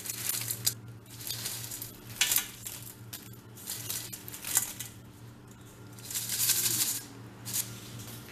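Crisp fries tossed by hand in a stainless steel colander, rattling and rustling against the metal in irregular bursts, over a low steady hum.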